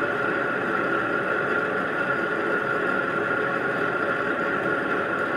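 Small bench metal lathe running steadily during a boring pass, its motor and gearing giving a constant mechanical hum with a steady high whine over it.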